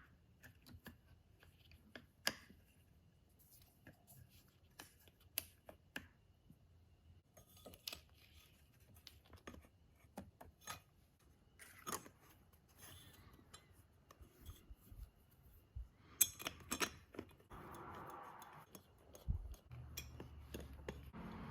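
Faint, scattered clicks and light metallic knocks of small engine parts and hardware being handled and set in place while reed cages, gaskets and intake manifolds are fitted to a Yamaha Banshee two-stroke engine. The sharpest knock comes about two seconds in.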